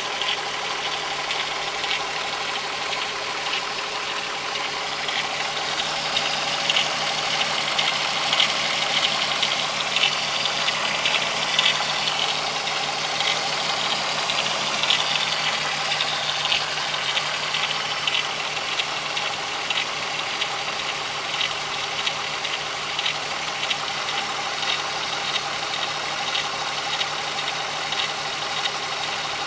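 Volkswagen 12-valve VR6 engine idling with a fast, steady ticking and rattling over the engine note. The ticks are a little louder for a stretch in the first half.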